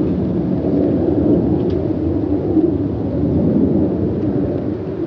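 Boeing 777-300ER's two GE90-115B turbofans at climb power, heard from the ground as a deep, steady rumble that fades slightly toward the end as the airliner climbs away.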